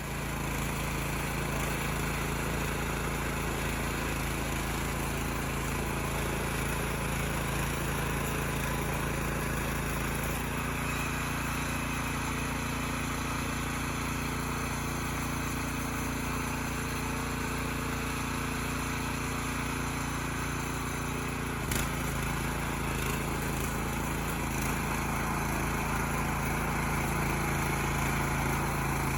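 Oka walk-behind tractor's Chinese-made petrol engine running steadily while it tills garden soil with its rotary cutters, with a single sharp knock about three-quarters of the way through.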